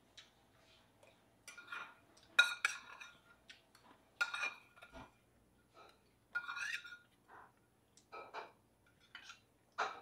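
Metal spoon scraping and clinking against a stainless-steel bowl: a series of short, ringing clinks, the loudest about two and a half seconds in.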